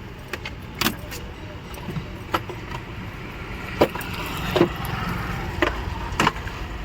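Scattered sharp clicks and knocks as the air filter housing is unclipped and lifted off a car's engine, over a steady low hum.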